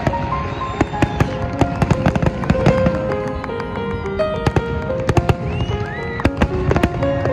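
Aerial fireworks going off in quick succession, many sharp bangs and crackles, along with music playing a melody.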